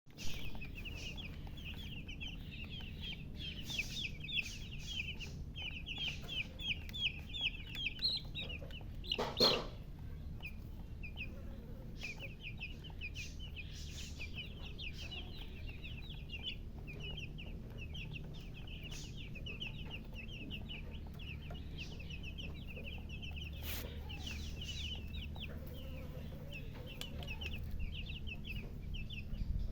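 Baby chicks peeping, a near-continuous stream of many short, rapid high chirps overlapping one another. There is one louder, lower sound about a third of the way through.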